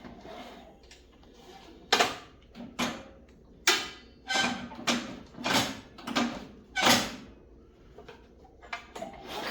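Recoil starter cord on a Craftsman snowblower engine being pulled in about eight quick, short strokes, starting about two seconds in. The engine does not catch, and the pull feels odd to the person starting it.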